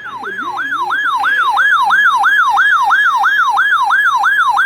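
Electronic siren tone sweeping quickly and repeatedly in pitch, about three sweeps a second. It swells in over the first second or so, then holds loud and steady.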